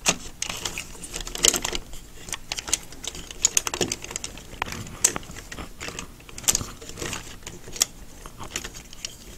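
Hard plastic parts of a Takara MP-11NR Ramjet transforming-robot figure clicking and clacking irregularly as they are handled and folded back into robot mode.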